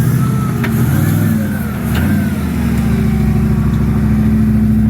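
Off-road rig's engine revving up and down in short blips, with a couple of sharp knocks about half a second and two seconds in, then settling to a steady run from about halfway through.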